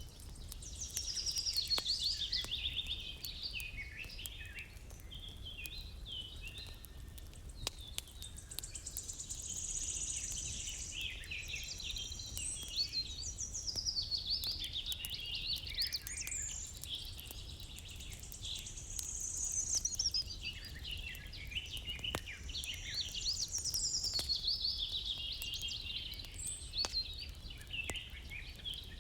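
Songbirds singing and chirping, several overlapping songs throughout, over a low steady rumble with faint scattered clicks.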